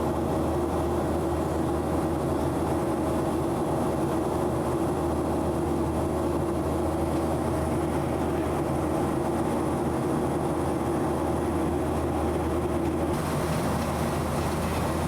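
Boeing 737-900 cabin noise in climb: the CFM56 turbofans and airflow making a steady drone with a few held tones, shifting slightly in tone near the end.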